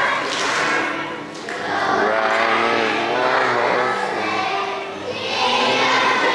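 Young children's choir singing a song together, with instrumental accompaniment underneath.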